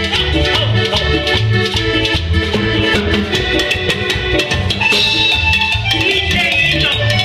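Live band playing Latin dance music: an electronic keyboard with bass and percussion over a steady beat.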